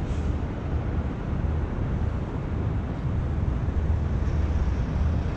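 Steady low outdoor rumble with a hiss over it and no distinct event.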